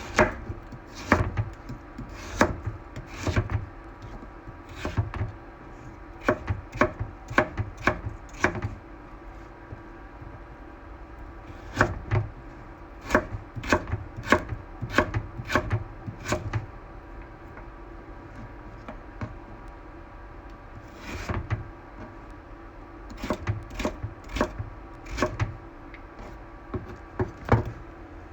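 Kitchen knife chopping food on a wooden cutting board in short, irregular runs of sharp knocks with pauses between, over a steady low hum.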